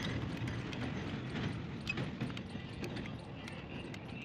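Light clicks and knocks of a chainsaw's metal cylinder being handled and seated on the crankcase, over a steady low background rumble.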